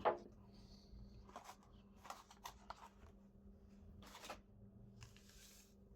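Faint handling of trading cards and packaging on a table: a few light taps and clicks as items are moved and set down, with a soft rustle about five seconds in.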